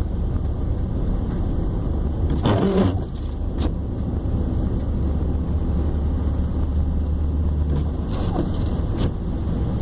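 Road noise inside a moving car: a steady low rumble of engine and tyres on a slushy highway. A brief gliding squeak-like sound comes about two and a half seconds in, and there are a couple of sharp clicks later on.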